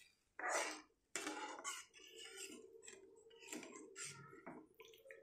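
A spatula stirring thin curry gravy in a kadhai: a string of short scrapes and wet swishes against the pan, the loudest in the first second, over a faint steady hum.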